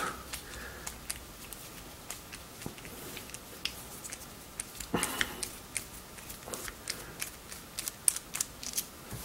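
Small bit screwdriver working a very tight, threadlocker-secured screw out of the aluminium housing of a Sick EFS50 motor-feedback encoder: a string of small, sharp clicks and ticks at irregular intervals, busier in the second half.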